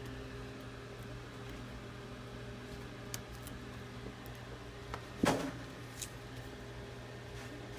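A few faint clicks of tweezers working at a smartphone's glass back panel, and one sharp knock about five seconds in as the glass panel is handled on the workbench, over a steady low hum.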